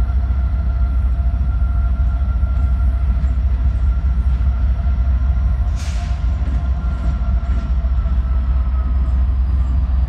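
Norfolk Southern diesel locomotives moving slowly with a coal train, a deep steady engine rumble with a faint steady whine over it. There is a brief hiss about six seconds in.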